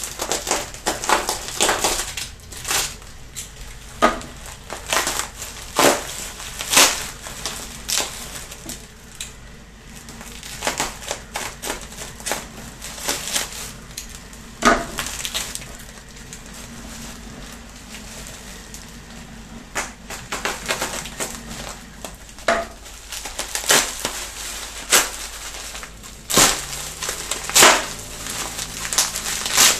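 Plastic bubble wrap and tape crinkling and crackling as the wrapping is cut with a utility knife and pulled apart by hand. The sound comes as irregular sharp crackles and rustles in clusters, with a quieter stretch midway.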